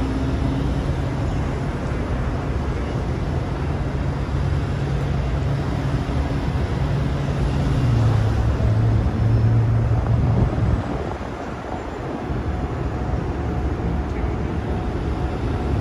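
Steady low engine hum and road noise from running vehicles. The hum drops in pitch about eight seconds in and eases off for a moment around eleven seconds.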